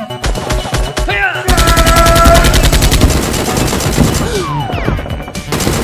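Bursts of rapid automatic gunfire sound effects, about ten shots a second: a short burst near the start, a longer and louder one from about a second and a half in, and another near the end.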